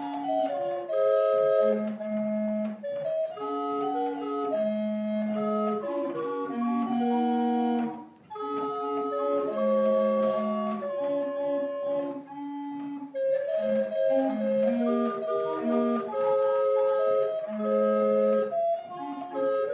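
George Pyke barrel organ of about 1772, hand-cranked, playing a tune on its pipes: a melody of sustained notes over lower held bass notes, with a short break about eight seconds in.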